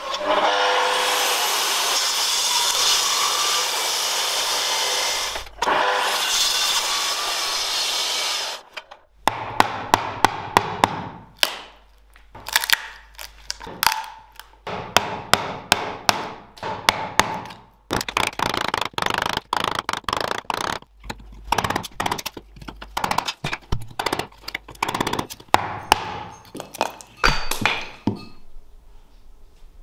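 A power tool runs steadily for about nine seconds, with a short break partway through. Then comes a long series of sharp knocks like hammer blows, often in quick clusters, which die away near the end.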